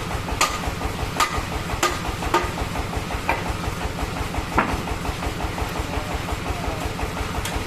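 Sawmill engine running steadily at a fast, even beat, with a scattering of sharp knocks (about seven, the loudest near the middle) from work at the mill.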